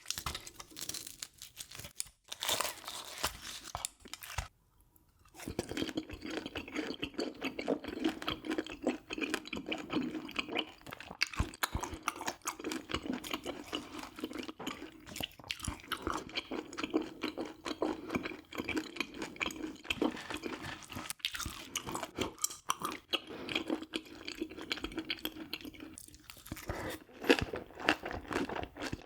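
A person chewing and crunching food close to the microphone, a dense run of small irregular crunches with a brief lull about four seconds in.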